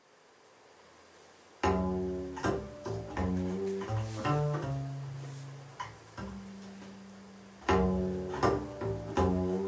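Recorded music: a low string bass plucked pizzicato, playing a short melodic phrase. The notes start about a second and a half in, one long low note is held in the middle, and the phrase begins again near the end.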